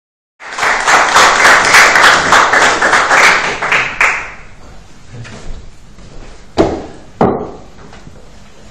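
Audience applause that starts about half a second in and dies away after about four seconds, followed by two dull thumps as a leather satchel is set down on a table.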